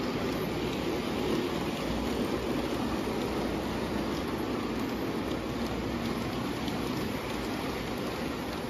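O gauge Lionel passenger train rolling on three-rail tubular track: a steady rolling noise of the wheels and cars on the metal rails, with faint clicks.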